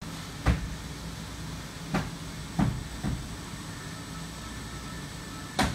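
Five scattered sharp knocks, the loudest near the start and near the end, over the steady low hum of a workshop.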